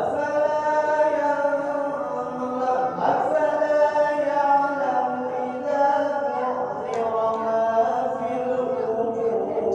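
A man's voice chanting in Arabic in the mosque style, holding long, ornamented notes that slide up and down.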